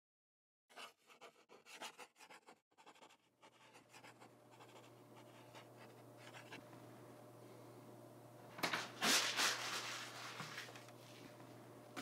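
Pen scratching across paper in a quick run of short strokes, fainter strokes following. About nine seconds in comes a louder rustle lasting about a second.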